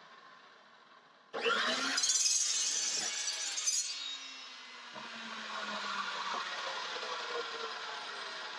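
Evolution metal-cutting chop saw starting up about a second in and cutting through square metal tubing with a loud, high-pitched screech for about two and a half seconds. The cut then ends, and the motor and blade spin down with a slowly falling tone.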